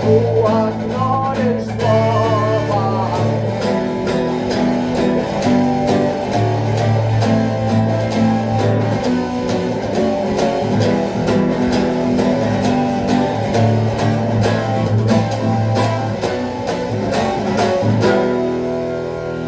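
Guitar music in an instrumental passage: a melody over evenly strummed chords and low held notes.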